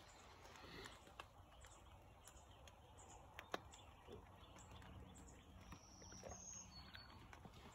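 Near-silent pre-dawn woods: faint, scattered bird chirps over a quiet hiss, with a few soft ticks of light rain dripping.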